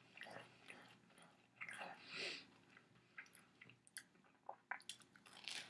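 Faint chewing of a soft Nutella sandwich on white bread, with small irregular mouth clicks.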